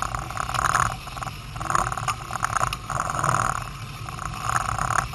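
Outboard motor running on a small fishing boat under way: a steady low rumble with a sound that swells and fades about four times.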